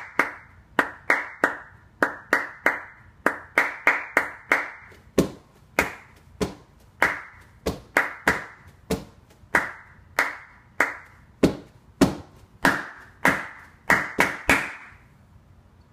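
Hand claps in a syncopated rhythm, stopping shortly before the end: the top line of a clap-and-stomp body-percussion piece.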